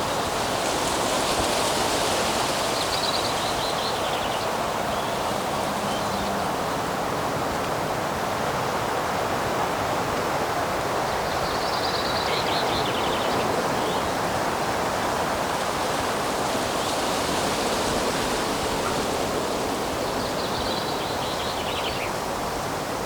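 Steady outdoor rushing noise that swells and eases every few seconds, with a bird singing a short phrase three times.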